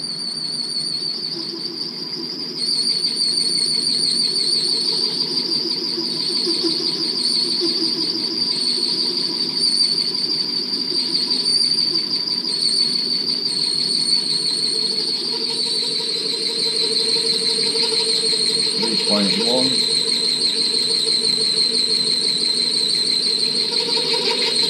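Milling machine running with a steady high whine as its cutter machines an aluminium engine block, the whine sinking slightly in pitch over time. The noise grows louder about two and a half seconds in and stays up.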